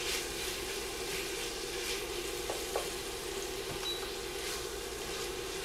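Raw ground beef sizzling in hot bacon fat in an enamelled Dutch oven on medium-high heat, with a steady frying hiss. A wooden spoon stirs and breaks up the meat, scraping against the pot now and then.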